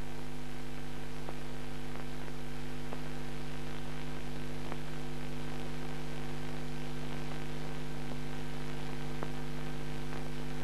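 Steady electrical mains hum with hiss and a few faint clicks: the empty soundtrack of an old film transfer, with no speech or music.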